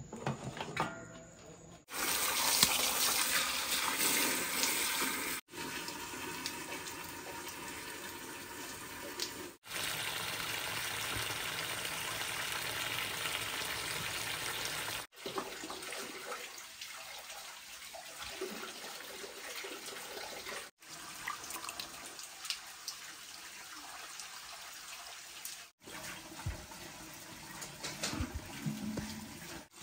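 Water running and splashing as a steady rushing hiss, louder for the first few seconds. It breaks off abruptly several times, like separate cut-together shots.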